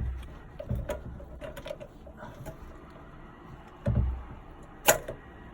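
Handling noises from fitting a toilet cistern inlet valve and its pipe: low knocks near the start, about a second in and about four seconds in, small taps between, and one sharp click near the end.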